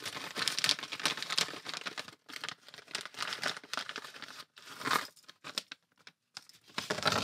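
Clear plastic bag crinkling as it is handled and opened, with the small steel nuts and bolts inside rattling as they are tipped out into a hand near the end.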